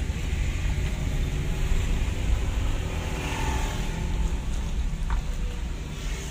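Steady low rumble of a car's engine and tyre noise, heard from inside the cabin while driving along a road.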